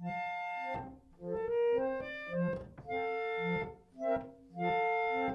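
Film trailer music: a slow series of about six held organ-like chords, each lasting just under a second with short gaps between them, cutting off abruptly at the end.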